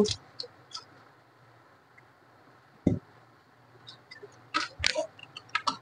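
Layers of an oiled plastic 3x3 puzzle cube being turned by hand, giving scattered soft clicks and clacks. There is one dull knock about three seconds in and a quicker run of clicks near the end. The turning is working the oil through the pieces.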